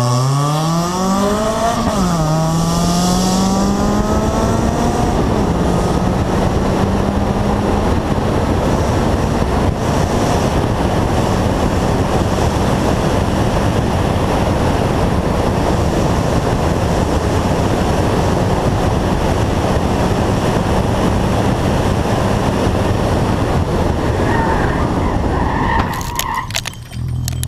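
Rally car accelerating hard from a standing start, its engine note climbing through the gears with a shift about two seconds in, then running at high, steady revs with road and wind noise at speed. Near the end the car strikes a straw bale: a brief clatter and disturbance as the engine note drops away, then it picks up revs again.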